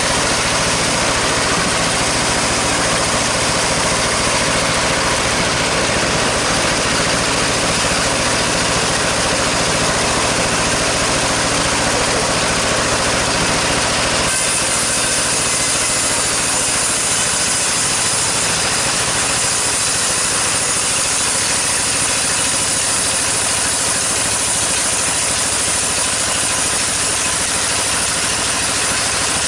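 Sawmill machinery running steadily, a saw cutting sengon timber over the hum of its drive engine. About halfway through the sound shifts, losing some of its low hum and turning hissier.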